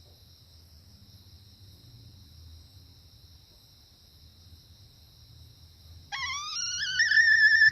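Steady high-pitched insect trilling in the background. About six seconds in, a junglefowl gives a loud call that rises in pitch and then holds steady.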